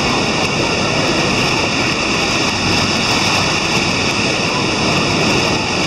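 Steady loud rushing of water pouring down a rock waterfall chute.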